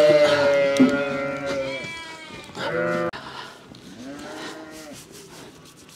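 Sheep bleating: several loud overlapping calls in the first two seconds, a shorter call just under three seconds in, and a fainter one around four seconds.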